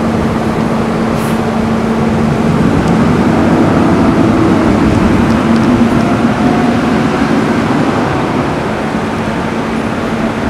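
Fire engine's diesel engine running as the truck pulls away, its note rising in the middle and then slowly fading as it moves off. No siren.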